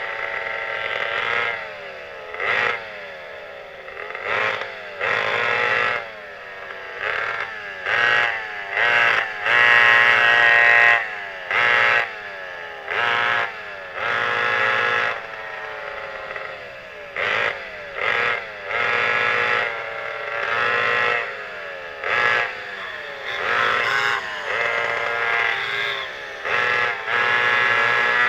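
The twin McCulloch 5.3 cubic-inch converted chainsaw two-stroke engines of a vintage 1962 Bug kart revving hard under throttle in repeated short bursts. The pitch falls each time the throttle is lifted.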